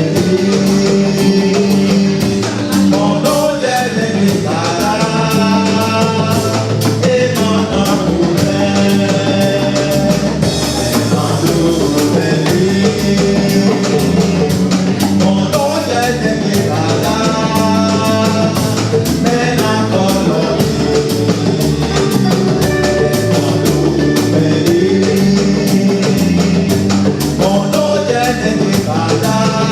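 Music with singing over drums and guitar, a steady beat, the sung phrases returning every few seconds.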